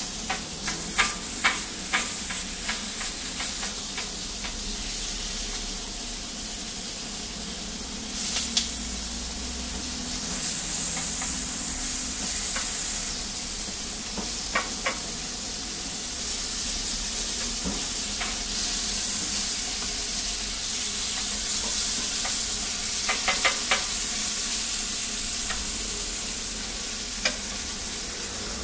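Egg crepe batter and diced meat sizzling steadily on a flat-top steel griddle. A metal scraper clicks and scrapes against the plate in several brief flurries.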